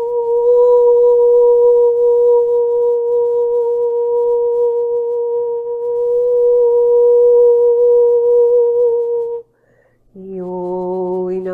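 A woman's voice holding one long, steady high sung note for about nine seconds, then breaking off sharply; about a second later a lower sung note begins.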